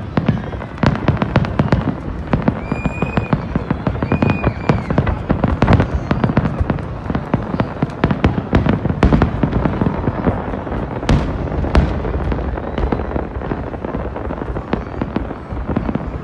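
Many fireworks bursting in quick succession, a dense unbroken run of cracks and bangs over a low rumble. A few brief high whistles come about three and four and a half seconds in.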